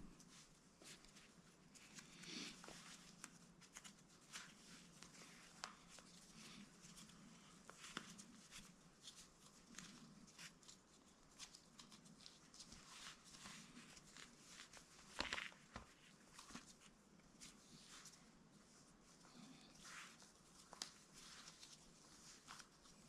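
Faint handling noises of a lace being threaded and pulled through a sandal's sole: soft rustles and scattered small clicks, with a sharper click about fifteen seconds in.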